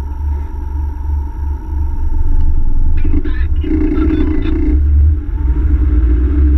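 Land Rover Tomcat driving in slow traffic: a steady low rumble of engine and road noise that grows louder about two seconds in.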